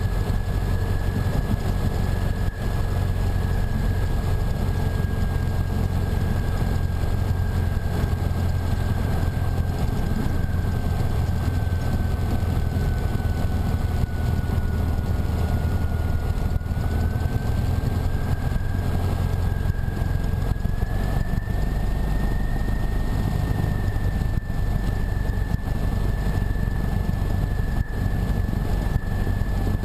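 Cessna 150's four-cylinder Continental O-200 engine and propeller running steadily at taxi power, a low hum with a high whine over it. The whine sags slightly just past the middle and comes back up about two thirds of the way through.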